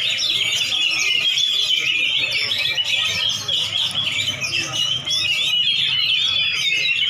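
Many caged songbirds, lovebirds among them, chattering and trilling all at once without a break, a dense overlapping chorus of high chirps.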